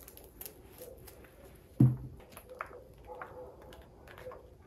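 A pomegranate being pulled apart by hand, its seeds dropping in small scattered clicks onto a serving platter, with one loud dull thump a little under two seconds in.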